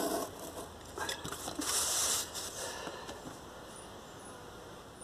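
Utility knife cutting through cardboard along a steel rule, a few scratchy strokes in the first two and a half seconds, the longest about two seconds in.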